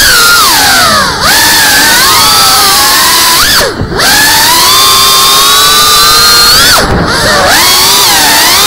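FPV quadcopter's brushless motors and propellers whining loudly, the pitch sliding up and down with the throttle. The whine drops out briefly and swoops back up about a second in, near four seconds and around seven seconds, as the throttle is chopped and punched again.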